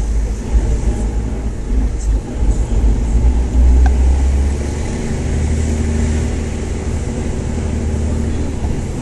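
Nissan Patrol 4x4 driving slowly, heard from inside the cabin: a deep, steady engine and road rumble.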